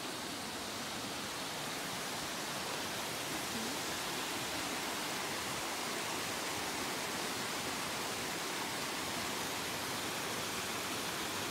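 Small waterfall cascading over a rock ledge into a jungle pool: a steady rush of water.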